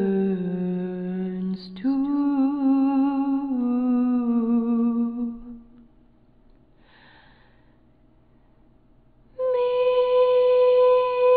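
A woman humming a slow, wordless melody in long held notes, with a breath about two seconds in. She fades out about five seconds in, leaving a quiet gap of about three seconds, then a steady, unwavering held tone starts near the end.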